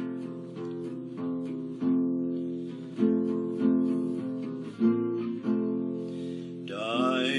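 Acoustic guitar strumming chords, a fresh strum about once a second, as the lead-in to a hymn. A man's singing voice comes in near the end.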